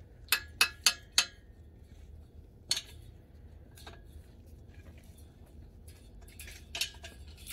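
Spanner clinking against the bolted wire clamps of a steel fence strainer post as they are tightened. Four quick metallic clinks come about a second in, then a few scattered single clinks.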